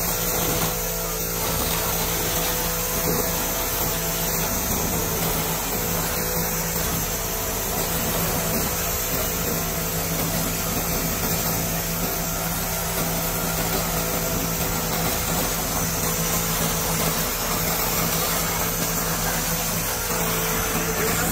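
Continuous-wave laser cleaning machine working over a cast-iron engine block: a steady hiss and whir with a low hum as the beam burns off oil and grime.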